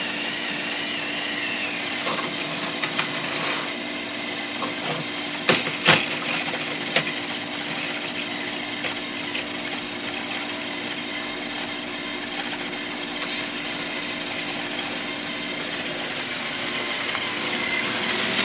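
Battery-powered Thomas TrackMaster toy trains running on plastic track: a steady whir of their small electric motors with wheel rattle. A few sharp clicks and knocks sound about five to seven seconds in.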